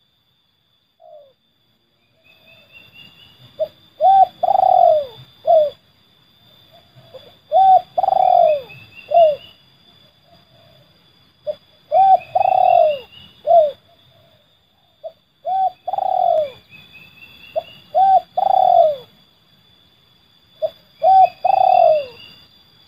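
Spotted dove (terkukur) cooing in the 'seladang gantung' song style. It gives five repeated phrases about four seconds apart, each a few short coos around a longer coo that falls in pitch.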